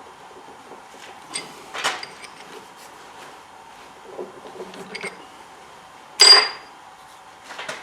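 Scattered light metal clicks and knocks from handling, with one loud, sharp, ringing metal clink about six seconds in; the lathe is not running.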